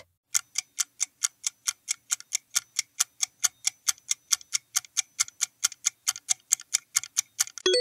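Countdown timer sound effect: a clock ticking evenly and quickly, about four ticks a second, while the answer time runs out.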